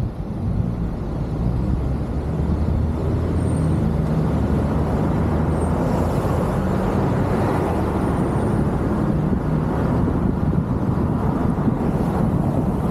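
Car driving along a city street: steady engine and tyre rumble with road noise, getting louder about half a second in.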